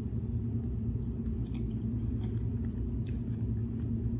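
Steady low background rumble, with a few faint clicks and mouth sounds of someone chewing food.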